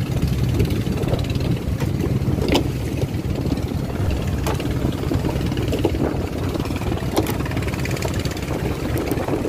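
Fishing boat's engine running steadily under way: a constant low hum, with water rushing and splashing along the hull and a few short knocks.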